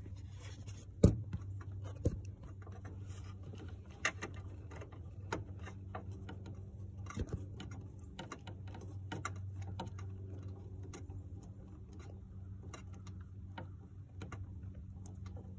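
Screwdriver with a flexible shaft turned by hand to tighten a headlight bulb bracket screw, giving scattered light clicks and ticks, with a sharper click about a second in. A steady low hum runs underneath.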